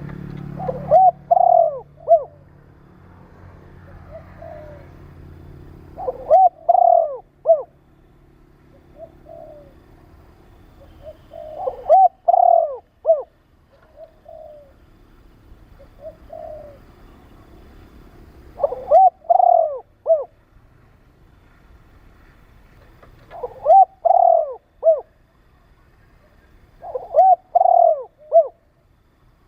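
Spotted dove cooing: loud phrases of a few rising-and-falling coos about every five to six seconds, with softer single coos between them.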